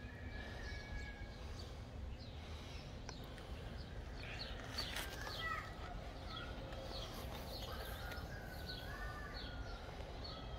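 Birds chirping, many short high calls that mostly fall in pitch and come thicker about four seconds in, over a steady low outdoor rumble.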